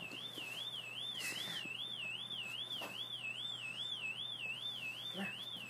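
A high-pitched warbling dog-whistle tone, wavering up and down about three times a second. It sounds like an electronic whistle at a frequency that is audible to some people and not to others.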